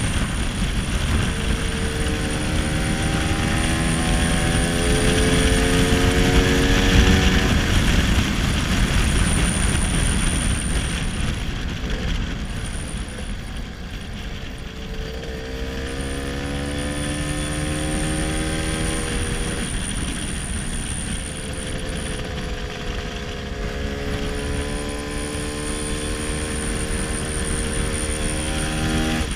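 1966 Lambretta SX scooter with a 225 Mugello two-stroke single-cylinder engine, running under way. Its revs climb three times, about two seconds in, around the middle and again near the end, easing off in between.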